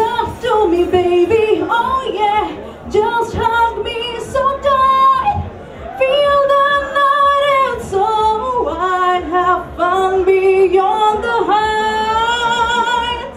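A woman singing unaccompanied into a handheld microphone: a slow melody with long held, wavering notes.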